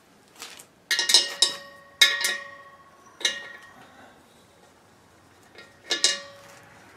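A steel wrench knocking against the brass fitting and the hollow steel shell of a propane-cylinder bead-seating tank. There are sharp metal clanks, each ringing briefly: a quick run of them about a second in, more around two and three seconds, and one near the end.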